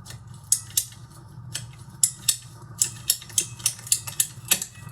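Husky ratcheting plastic pipe cutter being worked through 1-inch PVC pipe: a series of sharp ratchet clicks as the handle is squeezed, coming faster in the second half.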